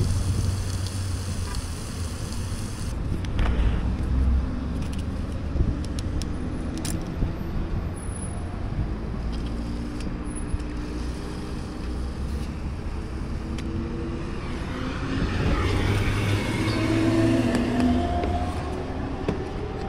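Dual-sport motorcycle engine running with road noise, with engine tones rising a little after the middle.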